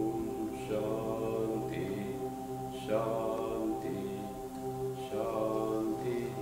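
A man's voice chanting unaccompanied in three long, drawn-out phrases about two seconds apart, closing the meditation. A steady low tone sounds underneath.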